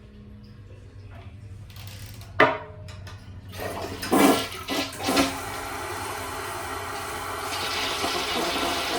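Older Gerber toilet flushing. A sharp click comes about two and a half seconds in, then a loud gush of water settles into a steady rush, and a higher hiss joins near the end.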